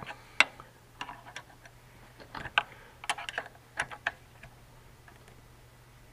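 Irregular light metallic clicks and taps from a wrench working the valve-lash adjuster and lock nut on a small four-stroke engine's rocker arm, stopping about four and a half seconds in.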